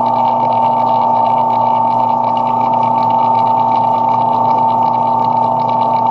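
Lathe running steadily with a constant high-pitched whine and a hum under it, while a knurling tool works the end of the turned knob.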